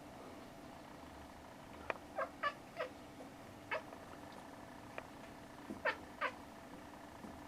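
A house cat making a series of short chirps, about seven, each quickly falling in pitch, some in quick twos and threes. These are chirps of the kind a cat makes while watching birds it cannot reach.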